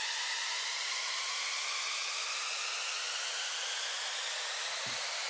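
Electronic noise riser: a steady hiss with faint tones inside it that climb slowly in pitch, the high-energy up-sweep that builds into the end of a house-music drop.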